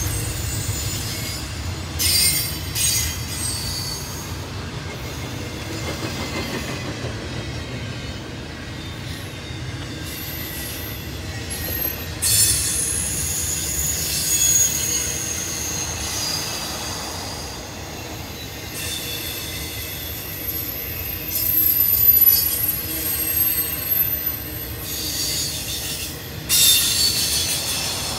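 A train's cars rolling past, a steady low rumble with high-pitched wheel squeal that comes and goes several times.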